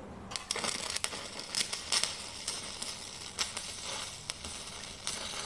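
Stick-welding arc crackling irregularly as a tack weld is struck on preheated cast iron with a coated electrode at about 80 amps; the crackle starts about half a second in.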